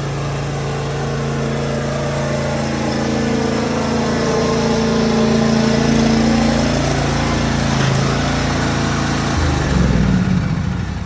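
John Deere E170 lawn tractor engine running steadily while the tractor is driven; near the end its pitch shifts and the sound begins to die down.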